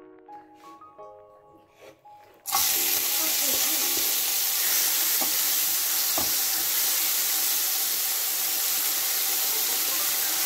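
Food sizzling in hot oil in a frying pan, starting suddenly about two and a half seconds in and continuing steadily, with a couple of light utensil clicks. Soft music plays faintly before the sizzle starts.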